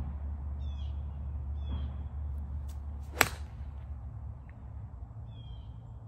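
Golf iron striking a ball off fairway grass: a single sharp click about three seconds in.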